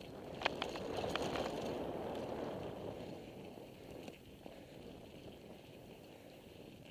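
Bicycle tyres rolling fast over a dirt trail, with a few sharp clicks and rattles from the bike over bumps. The rolling noise swells about a second in and then slowly eases off.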